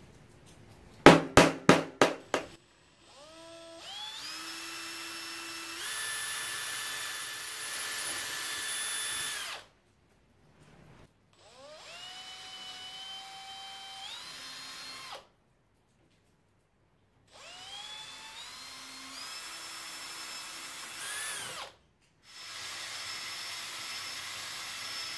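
A hammer strikes a nail about six times in quick succession, centre-punching hole positions on a jigsaw's metal base plate. After that, a Makita 18V cordless drill runs in four separate bursts as it drills small pilot holes. Each burst whines up in pitch as the trigger is squeezed, holds steady and then stops abruptly.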